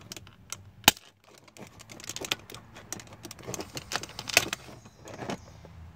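Plastic clicking and scraping as a plastic pry tool works at a knob on a Ford Explorer's power seat switch trying to pop it off, with a sharp snap about a second in and another loud cluster of clicks a little after four seconds.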